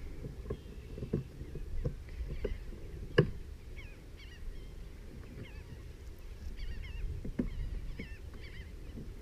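Birds calling, a flurry of short warbling chirps mostly through the middle of the stretch, over a low wind rumble. A few knocks from gear being handled in the kayak, the loudest about three seconds in.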